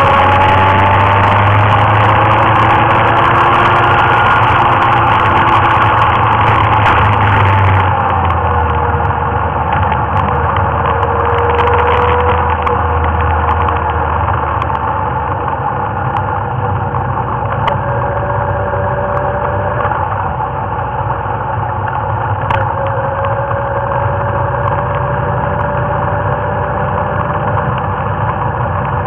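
Motorcycle engine running under way, its note gliding up and down with speed and dropping to a lower pitch about eight seconds in.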